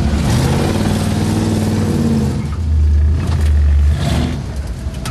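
Off-road 4x4's engine heard from inside the cab, revving up and down as it drives over rough ground, then a loud low rumble about three seconds in, with a few knocks around four seconds in.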